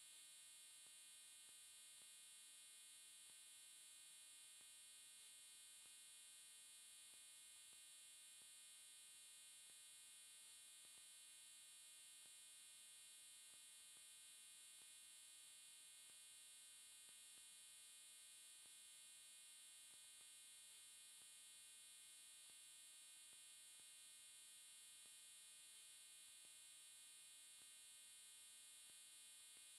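Near silence: only a faint, steady electrical hum and hiss, unchanging throughout.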